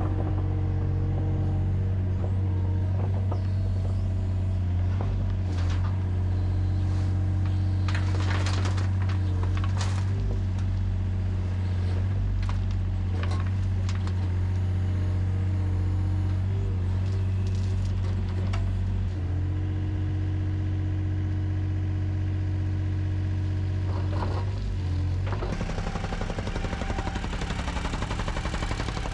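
Takeuchi TB230 mini excavator's diesel engine running steadily under load while it digs, with scattered scrapes and knocks. Near the end the engine note shifts and a rougher rattle comes in.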